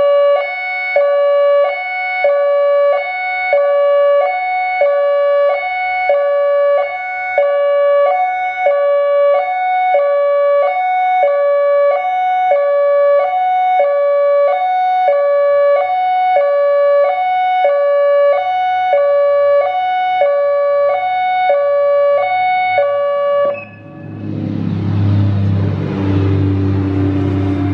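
ACA Alertronic AL-4000 electronic outdoor warning siren sounding its hi-lo signal, switching between a high and a low tone about once a second. It cuts off about three-quarters of the way through, at the end of the test cycle. A low vehicle rumble then takes over.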